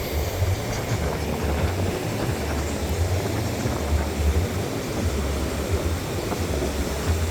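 Wind buffeting the microphone: an uneven low rumble that swells and dips, over a steady hiss of outdoor noise.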